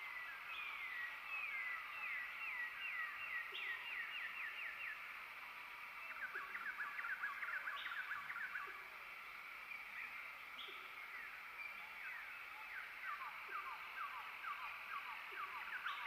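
Chorus of small frogs calling: overlapping trains of quick falling chirps, with a short higher note every few seconds.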